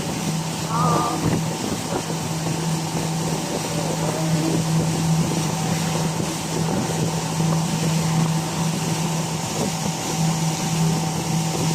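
Motorboat engine running at a steady drone, with wind noise on the microphone.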